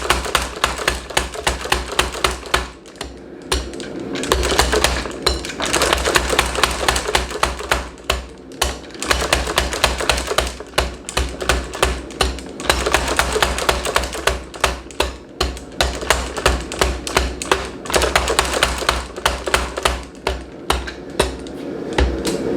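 Power hammer striking hot 3/4-inch square steel stock in rapid blows, several a second, with a deep thud under each stroke and a few short pauses: drawing the bar out to a taper.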